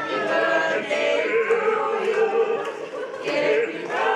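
A group of people singing a birthday song together in long, sustained notes.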